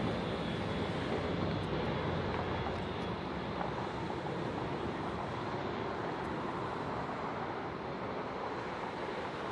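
Boeing 767 airliner's jet engines running steadily as the aircraft rolls past on the ground, the sound slowly fading as it moves on.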